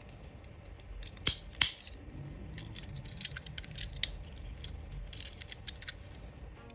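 Small hard plastic and metal parts being handled: two sharp clicks just over a second in, then a run of light clicks and taps, as a diecast toy car and its packaging are worked with the hands.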